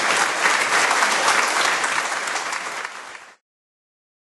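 Audience applauding, many hands clapping together; the applause dips slightly and then cuts off suddenly a little past three seconds in.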